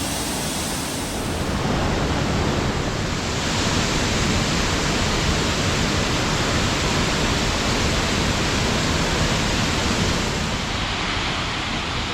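Steady rushing roar of a waterfall, white water falling without a break. It grows louder about two seconds in and eases slightly near the end.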